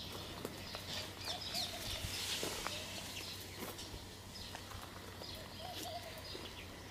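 Outdoor ambience with birds chirping, a few brief wavering calls and scattered small clicks and rustles.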